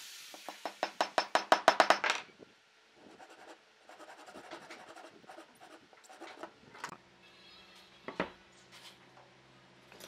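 A claw hammer tapping on a pine table-base foot: a quick run of about a dozen light, speeding-up strikes over the first two seconds. Softer wood-handling noise follows, with a single knock about eight seconds in as a board is set down on the workbench.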